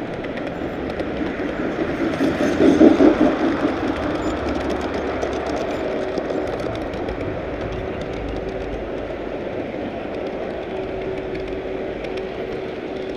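Model train rolling along its track, heard from on board: a steady rumble of wheels on rail with fine clicking, swelling loudest about three seconds in, with a faint steady hum through the second half.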